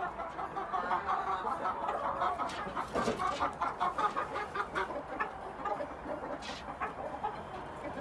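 Young gamefowl chickens clucking in a steady run of short, quick notes, with a brief flurry of wing flapping near the middle.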